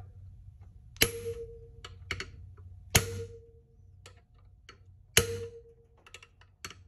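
Hammer striking a 14 mm socket set over a valve spring retainer on an LS cylinder head, three sharp metallic blows about two seconds apart, each leaving a brief ringing tone. The blows knock the valve locks loose from the retainer while the spring is held compressed.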